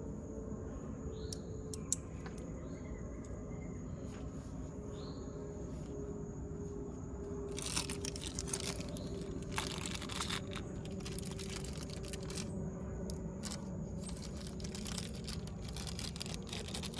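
Rustling and scraping in irregular stretches, starting about eight seconds in, as battery cables and terminal hardware are handled, over a steady low background hum.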